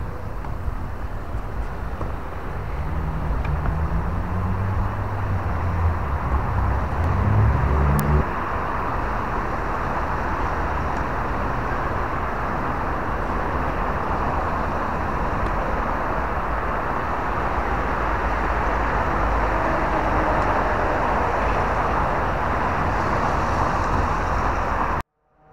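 Steady road traffic noise, with a vehicle engine rising in pitch from about three to eight seconds in; the sound cuts out abruptly near the end.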